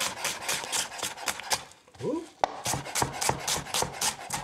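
Chef's knife dicing a red onion on a plastic cutting board: quick, even chops, about five or six a second, with a short break a little before halfway.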